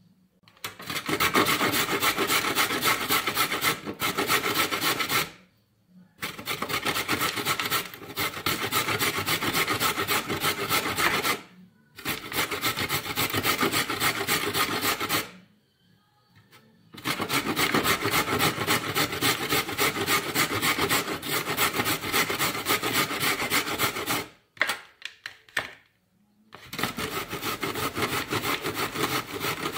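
Carrots and then a zucchini being grated on a stainless-steel box grater: rapid back-and-forth scraping strokes in five long runs with short pauses between them.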